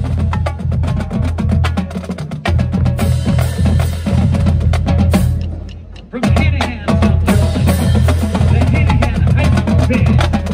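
High-school marching drumline (snare drums, tenor drums and a line of bass drums) playing a fast cadence, with dense stick strokes over the bass drums. The playing thins out and drops away briefly about six seconds in, then comes back at full volume.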